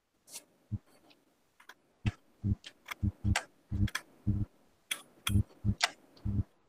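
Computer input clicks: a few faint clicks, then from about two seconds in roughly a dozen sharp clicks at an irregular pace, two to three a second.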